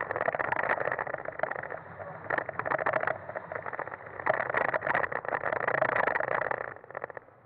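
A Fiat Punto HGT driving hard over loose gravel and dirt, heard through a bonnet-mounted action camera: a dense, crackling rush of tyre and wind noise in which the engine is not picked out. It dies away sharply near the end as the car slows.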